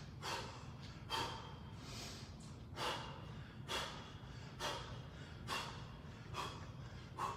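A man's sharp, hissing exhales through the mouth, about one a second, each timed with a punch as he throws uppercuts.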